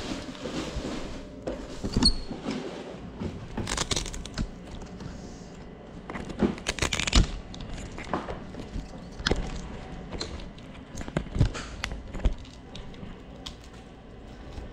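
Handling noise: scattered clicks, taps and knocks with short rustles, as small gear is moved about. The loudest knocks come about two seconds and seven seconds in.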